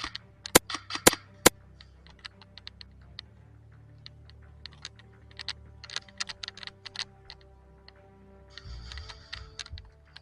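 Airsoft gunfire heard as irregular sharp cracks and clicks. Three loud cracks come within the first second and a half, then scattered lighter clicks, with a denser run about six to seven seconds in.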